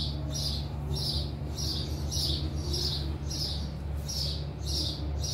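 A bird chirping over and over in an even rhythm, about two short high calls a second, over a steady low hum.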